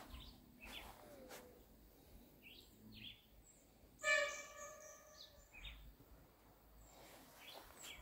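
Footsteps through grass on a hillside, with scattered short bird chirps. About halfway through, one louder steady-pitched call rings out and fades over about a second.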